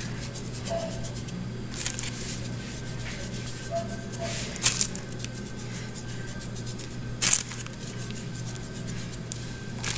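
A hand sprinkling ground cumin over raw pork and rubbing it into the seasoned meat in a metal tray: soft rustling and squishing with a few sharp taps, over a steady low hum.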